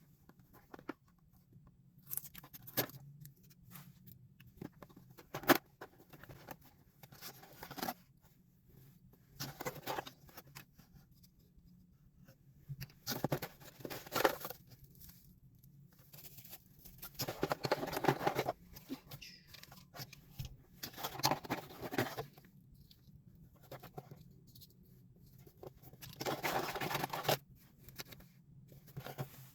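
Packaging being torn open and handled: irregular bursts of tearing and rustling with sharp clicks, over a faint steady low hum.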